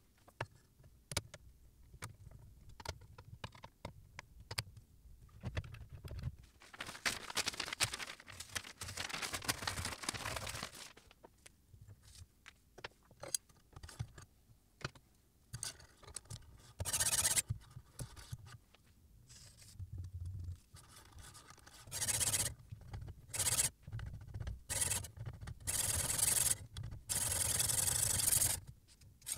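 Metal parts of a knife-sharpening jig clicking, knocking and sliding as a chef's knife is clamped and the guide rod fitted. Over the last several seconds a diamond sharpening stone on the guide rod scrapes along the blade in repeated strokes about a second apart.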